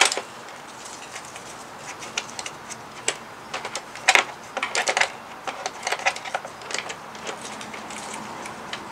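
Irregular small metallic clicks and taps as a hand tool works a seat bolt and its washer out of a motorcycle seat mount, busiest and loudest about halfway through.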